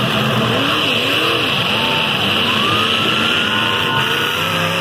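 Several demolition-derby car engines revving up and down together, their pitches rising and falling over one another, one of them held high for a second or two in the middle, over a steady hiss.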